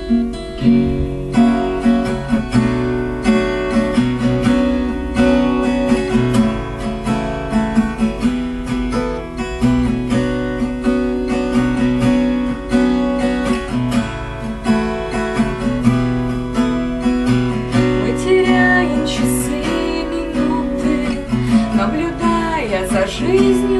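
Acoustic guitar strummed in an instrumental passage of a song, with steady chords and regular strokes.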